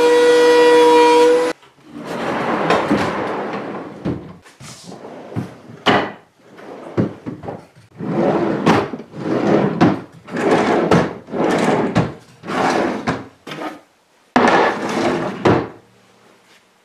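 Wooden drawers on drawer slides being pulled open and pushed shut over and over, about twenty rumbling slides in a row. Before that, a machine's steady whine cuts off about a second and a half in.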